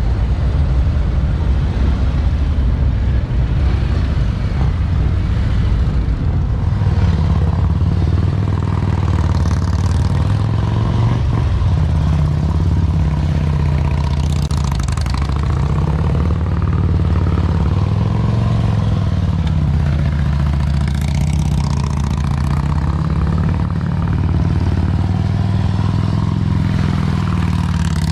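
Heavy touring motorcycle engines running at low speed, the revs rising and falling gently as the bikes are feathered through tight slow-speed turns.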